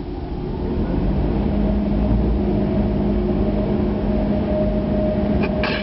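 Steady mechanical hum heard from inside a car: a low rumble with two steady tones, one low and one higher, growing louder about a second in. A short click sounds near the end.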